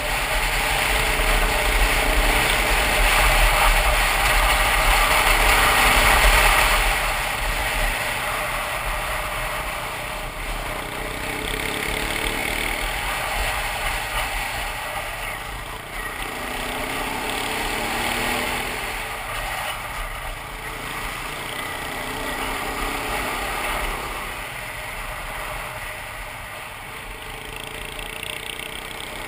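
Wind rushing over the microphone of a camera on a riding KTM single-cylinder dual-sport motorcycle, with the engine's note rising and falling underneath. The wind rumble is loudest for the first seven seconds or so, then eases.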